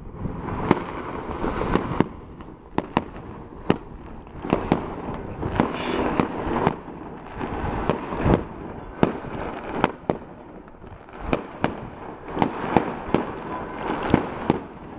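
Fireworks display going off: a continuous crackle with many sharp bangs at irregular intervals, several a second at times.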